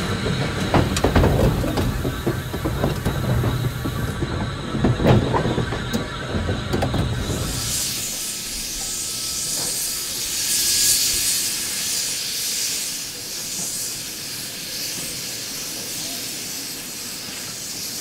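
Orenstein & Koppel 0-4-0 steam locomotive heard from the footplate at first: a loud rumble with clattering knocks as it runs along the rails. About eight seconds in this gives way to a steady hiss of steam escaping from the locomotive's open cylinder drain cocks.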